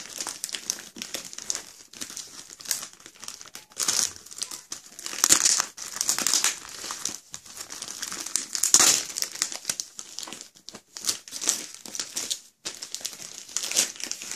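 Plastic courier mailer bag crinkling and rustling in irregular bursts as hands turn it over and pull at it, trying to get the taped-up package open.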